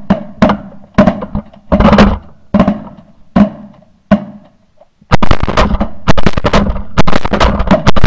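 Rapid 12-gauge shotgun fire from several hunters shooting into a flock of pigeons. Single blasts come about every half second, then there is a short lull just before four seconds, then a dense barrage from about five seconds on as the shooters empty their magazine extension tubes.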